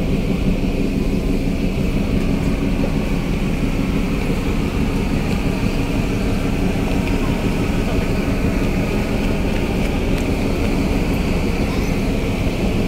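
Steady low drone of a passenger ferry's engines and deck machinery heard on the open deck, with wind buffeting the microphone.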